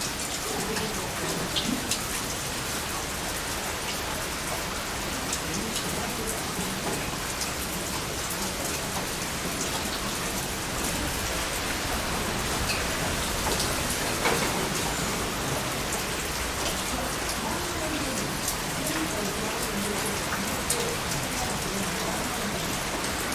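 Heavy rain falling steadily, a dense even hiss with scattered sharper drop hits.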